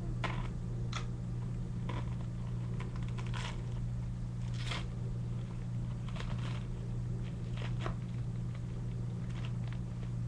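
Clear plastic bag crinkling and rustling in short, irregular bursts as it is handled. A steady low hum runs underneath.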